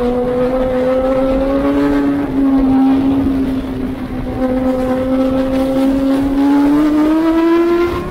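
Racing motorcycle engine at high revs, heard from a camera mounted on the bike, with wind rush over it. The pitch holds steady, jumps slightly about two seconds in, and climbs steadily near the end as the bike accelerates.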